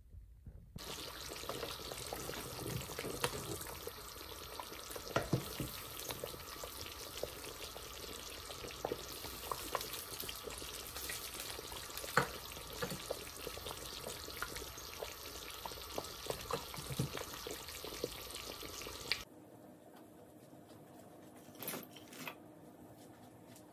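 Pakora curry simmering and sizzling in a steel pot while a silicone spatula stirs it, with many small pops. It cuts off suddenly about 19 seconds in, leaving quiet room tone with a couple of light knocks.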